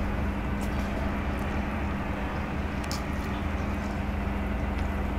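Steady low hum with one constant tone, with a few faint clicks of eating from a plate on top of it.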